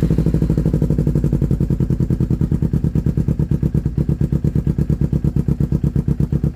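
Kawasaki Ninja 250 parallel-twin engine idling steadily through an aftermarket iStunt slip-on muffler, just after starting, with an even run of exhaust pulses.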